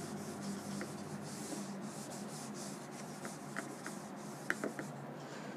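Felt whiteboard eraser wiping back and forth across a whiteboard: a steady rubbing swish, with a few brief high squeaks in the second half.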